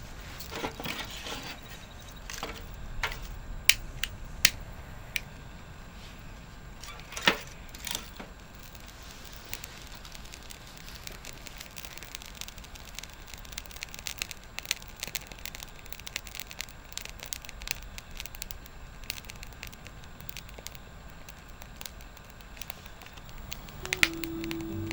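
Wood fire crackling, with scattered sharp pops that are loudest in the first eight seconds.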